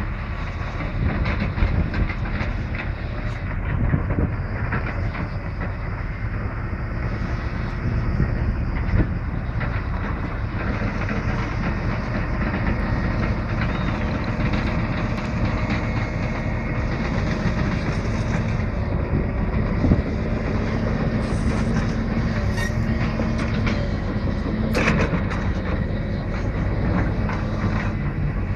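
Case crawler excavator's diesel engine running steadily under load as it digs, with occasional sharp knocks.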